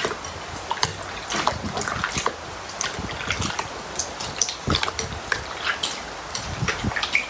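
Slime being squeezed and poked by hand: irregular wet clicks, pops and squelches, several a second.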